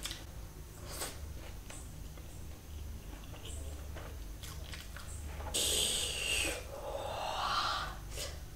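Close-miked chewing and mouth sounds of chicken biryani eaten by hand, with scattered short clicks. A little past the middle comes a loud hissing rush lasting about a second, then a fainter breathy sound.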